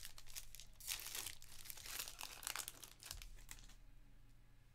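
Foil trading-card pack wrapper crinkling and tearing as it is ripped open, a run of crackles that dies down after about three and a half seconds.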